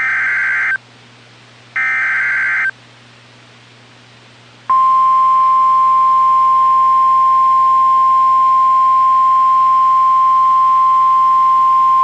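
NOAA Weather Radio Emergency Alert System header and alarm: the last two of the three SAME data bursts, each a harsh warbling screech about a second long and about a second apart. Almost five seconds in, the steady 1050 Hz warning alarm tone starts and holds, signalling that a warning, here a flash flood warning, is about to be read.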